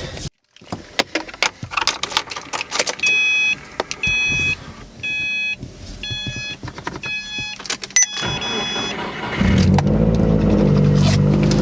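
A car's warning chime sounds about once a second, six times, among scattered clicks and knocks. The engine then starts about nine and a half seconds in and runs steadily.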